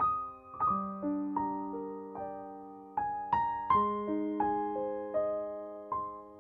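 Background piano music: slow, soft notes and chords, each struck and left to ring and fade.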